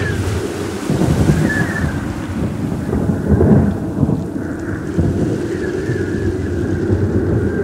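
Storm sound effect: heavy rain hissing under a deep, rolling thunder rumble that swells to its loudest about three and a half seconds in.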